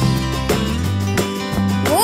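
Background music for a cartoon with a steady beat and plucked, guitar-like notes. A short sound that glides up and then down comes in right at the end.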